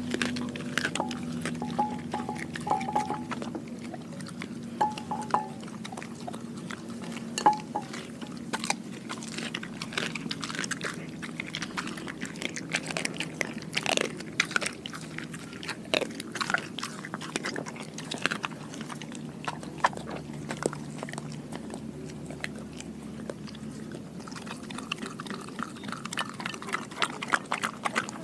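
A German shepherd mix chewing and crunching whole raw fish (mackerel pike and sardine), with many irregular crunches of bone.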